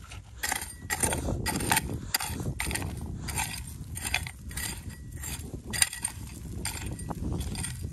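Steel blade of a short-handled hand hoe chopping and scraping into dry, gravelly soil and small stones, in a steady rhythm of about two strokes a second.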